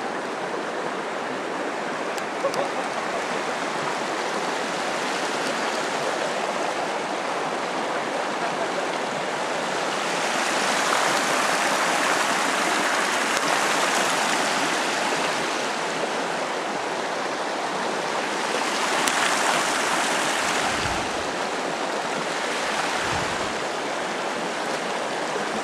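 Mountain creek running over rocks between snowbanks: a steady rushing of water that swells louder twice midway.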